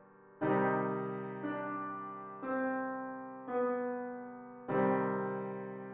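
Slow piano music: five chords struck about a second apart, each left to ring and fade.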